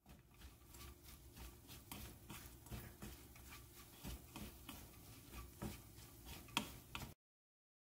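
Two wooden spatulas tossing and mixing a sticky dried-shrimp stir-fry in a nonstick wok: soft, irregular scrapes and clicks of wood against the pan, with one sharper knock near the end.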